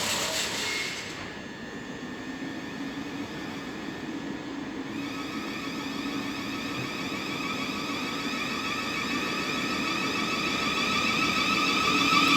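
An electric train's traction motors whining with several steady tones over a low hum, growing gradually louder. There are a few brief knocks at the very start.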